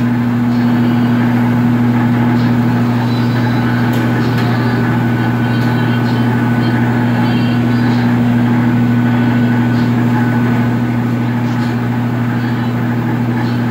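Steady low hum with a constant rushing noise from a brick bread oven's gas burner running, its flames burning in a line along the back of the oven.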